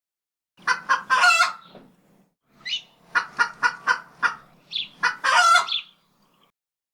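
Chicken calls: a drawn-out squawk, then a quick run of about six short clucks, then another drawn-out squawk.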